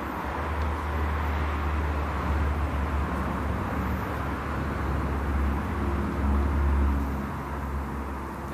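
Wind buffeting the microphone: a low rumble that swells twice, over a steady outdoor hiss.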